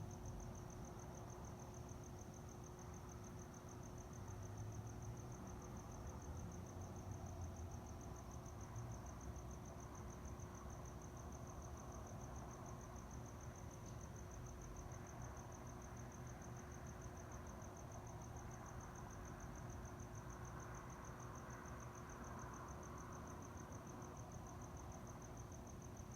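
Crickets chirping in a steady, high, evenly pulsing trill, with a faint steady low hum and low background noise beneath.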